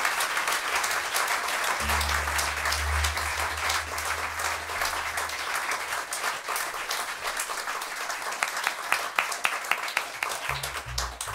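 Audience applauding after a song. The clapping thins to scattered claps near the end. A low bass note rings out for about three seconds starting two seconds in, and low notes sound again briefly near the end.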